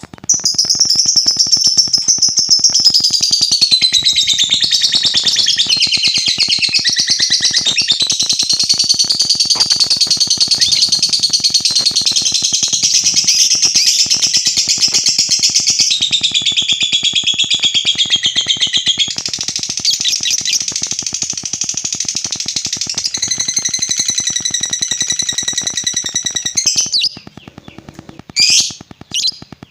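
Lovebird giving a long ngekek: an unbroken, rapid, high-pitched chattering trill that runs for about 27 seconds. It then breaks off into a few short separate chirps near the end.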